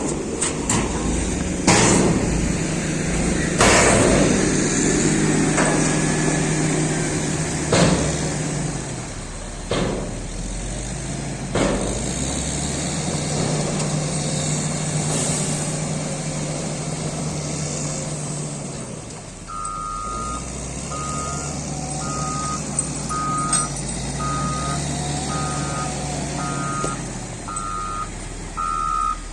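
Cat 140GC motor grader's diesel engine running under load, with several sharp clanks and knocks in the first dozen seconds. About two-thirds of the way in its reversing alarm starts, beeping about once a second as the machine backs up.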